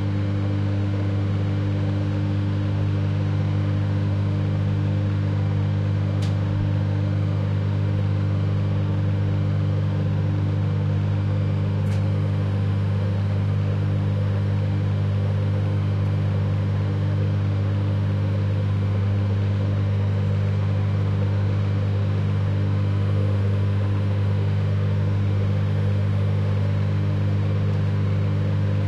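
AI-generated imitation of a microwave oven heating food: a steady low hum that does not change, with a faint tick about six seconds in and another about twelve seconds in.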